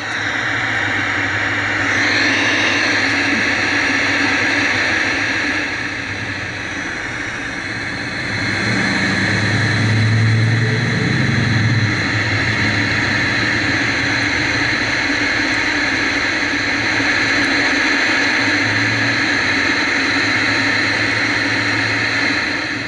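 Static hiss from the speaker of a 1970s KMC black-and-white tube TV tuned to no station, over a low mains hum. The set is running on a dim-bulb current limiter. The hiss dips and swells a little in level partway through and cuts off at the end.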